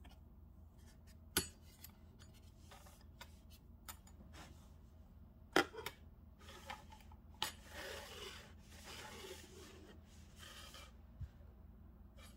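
Handling noise from hands working a crocheted yarn circle: a few sharp clicks and taps, the loudest about five and a half seconds in, then a few seconds of rustling as a hand rubs and smooths the fabric, over a faint steady low hum.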